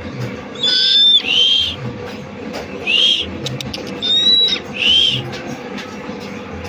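Buffy fish owl giving five short, high-pitched calls, each rising and then falling, mostly in pairs.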